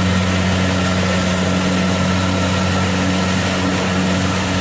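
Brand-new Kubota DC-70 rice combine harvester running under load as it cuts and threshes rice. Its diesel engine gives a steady low drone, with an even rushing mechanical noise from the machinery over it.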